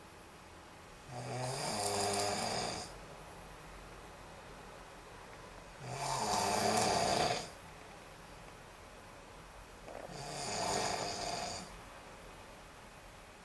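A sleeping person snoring: three snores, each about a second and a half to two seconds long, coming roughly every four seconds.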